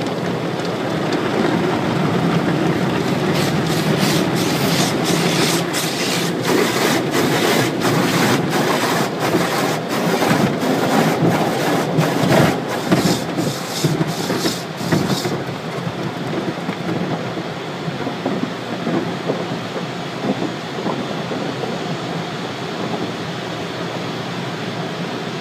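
Automatic car wash heard from inside the car: cloth brushes slap and scrub over the windshield and body with running water, about two slaps a second, and stop about halfway through. A steady spray of rinse water on the glass follows.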